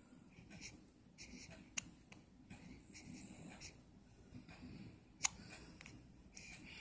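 Baby's hiccups: two short, sharp hiccups, a faint one about two seconds in and a louder one about five seconds in, over soft rustling.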